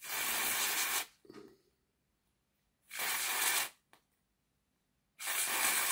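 Aerosol cleaner sprayed through a thin straw in three short hissing bursts, each about a second long, onto the armature of a Tri-ang X500 model-railway motor to clean it.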